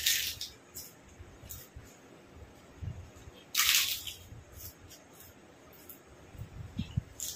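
A man eating rice and curry with his fingers: wet chewing and lip smacks with small clicks, and a short loud slurp right at the start and another about three and a half seconds in.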